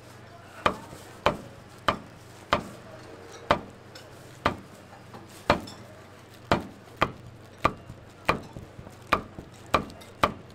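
Cleaver chopping on a cutting board: a run of sharp single chops, about one to two a second, slightly quicker in the second half.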